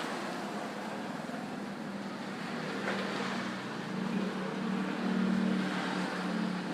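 Road traffic going by: a steady rush with a vehicle engine's hum that swells as it passes, loudest about four to six seconds in.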